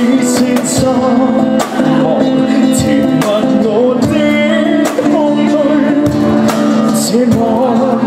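Live acoustic band: a man singing into a microphone over a strummed acoustic guitar, with regular cymbal strikes and percussion keeping the beat.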